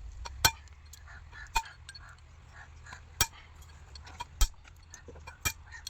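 Sharp metallic clinks, about five spread over six seconds with short ringing after each, as metal tools and parts are handled and knocked together.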